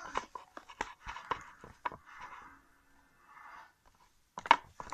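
Homemade slime being squeezed and poked by hand, giving irregular wet clicks and crackles with a few short squishy stretches and a quick run of louder clicks near the end.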